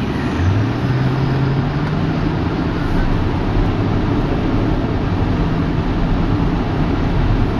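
Car engine and road noise heard from inside the cabin. About half a second in, the engine note rises quickly as the car pulls away and accelerates, then climbs more slowly and fades back into the steady road noise.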